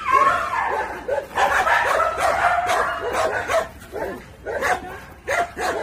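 An excited dog straining at its leash toward a cat, whining and yelping in quick short cries, thickest in the first few seconds and more broken up after; the handler reads this as high arousal and a wish to chase.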